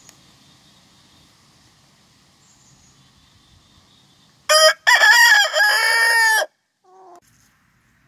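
Buff Orpington rooster crowing once, about halfway in: a short opening note, then a long held cock-a-doodle-doo of about two seconds, followed by a short, faint call.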